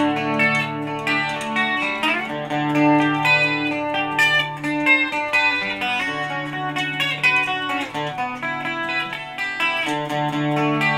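Gibson Les Paul electric guitar played through a Digitech RP55 multi-effects processor: picked single-note lead lines with held notes, and one note bent upward about two seconds in.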